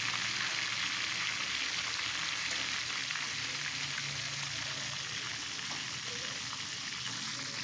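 Hot oil sizzling steadily as a pomfret fish fries in a pan, with a faint low hum underneath.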